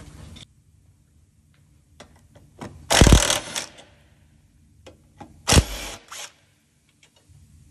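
Cordless impact wrench running in two short rattling bursts about two and a half seconds apart, loosening bolts on a car's front subframe section, with a few light metal clicks before the first.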